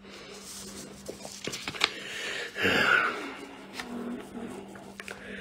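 Quiet handling noise in a small room: a few light clicks and a brief soft rustle a little past the middle, over a faint steady hum.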